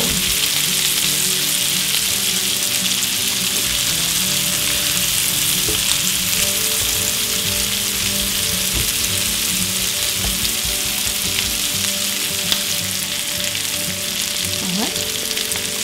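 Diced onions sizzling steadily in hot oil in a frying pan, stirred now and then with metal tongs, as they turn translucent.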